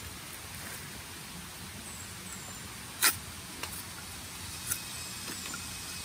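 A bolo blade striking a short bamboo tube once, a single sharp crack about three seconds in, followed by two lighter ticks, as the tube of a bamboo dove call is cut shorter to raise its pitch. Faint high chirps sound now and then over a steady background hiss.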